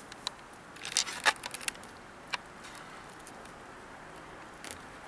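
Pheasant feathers being plucked out by hand: short crackling tugs, a quick cluster of them about a second in, then two more, spaced out, later on.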